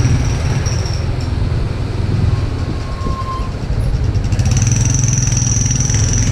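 Motorcycle engine running steadily while riding at low speed, with road noise. A steady high whine comes in about four seconds in.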